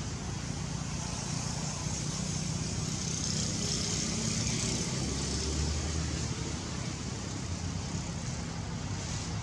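Steady outdoor background noise: a low, even rumble with a high hiss over it that swells slightly in the middle, with no distinct event.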